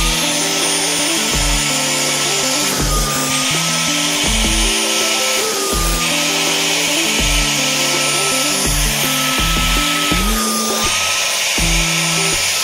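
Kmart handheld spot cleaner's suction motor running with a steady whine and rushing air as its upholstery nozzle is drawn over fabric. The hiss dips briefly every couple of seconds. Background music with a beat plays over it.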